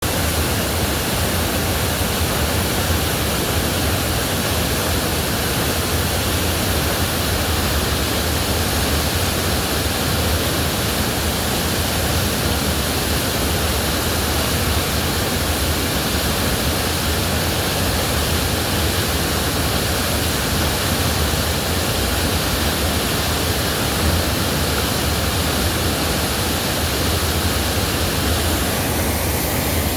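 Waterfall rushing: a loud, steady, even noise of falling water that does not change.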